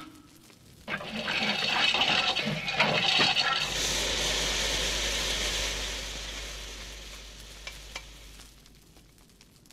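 Animated steam sound effect: a sizzling hiss starts about a second in, then gives way to a steady rushing hiss over a low rumble, which fades out near the end.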